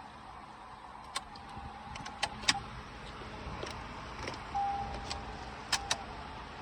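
Inside a car with the ignition switched on: a handful of sharp clicks, two close together near the end, with a few brief faint tones and a low steady background.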